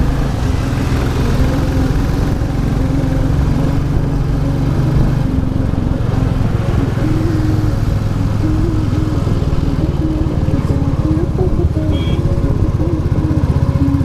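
Royal Enfield Classic 350's single-cylinder engine running while the motorcycle is ridden, a continuous low pulsing beat whose pitch wavers with the throttle in the second half.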